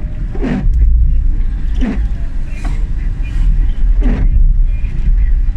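Car driving, heard from inside the cabin: a steady low engine and road rumble, with three short sounds falling in pitch, about half a second, two seconds and four seconds in.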